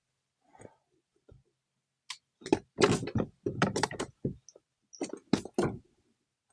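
Splashes and knocks of a bass being landed into a kayak: a quick run of loud, sharp hits from about two seconds in until near the end.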